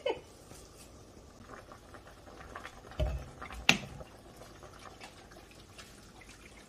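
Utensils working in a stainless steel pot of broth: faint liquid sounds and small ticks, a soft thump about three seconds in, and a sharp clink against the pot just after.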